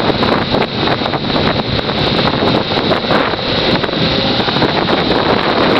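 Loud wind buffeting on the microphone of a moving motorcycle at road speed, with the bike's engine and road noise mixed in underneath.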